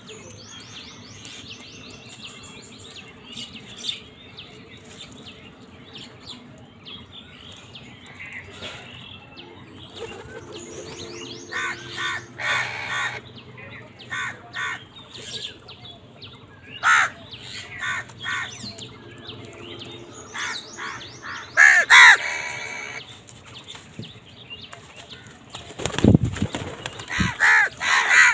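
House crows cawing now and then while feeding: a few harsh calls several seconds apart, the loudest about two-thirds of the way in, over faint high chirping of small birds. A low thump sounds near the end.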